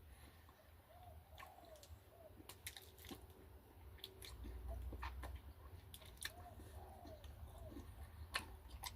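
Faint close-up chewing of a sticky chocolate-covered banana chew, with scattered soft mouth clicks. A brief low rumble comes about halfway through.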